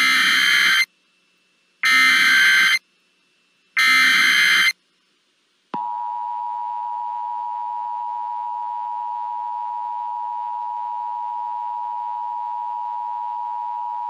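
Emergency Alert System test signal: three short bursts of warbling digital data tones (the SAME header), each about a second long and two seconds apart, then the two-tone EAS attention signal, a harsh steady tone held for about eight seconds before cutting off.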